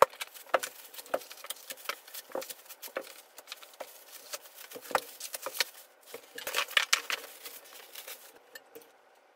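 Unpacking a flat-packed electric standing desk: cardboard flaps, foam packing and plastic bags being moved and metal frame parts set down, heard as an irregular run of knocks, taps and rustles that dies away near the end.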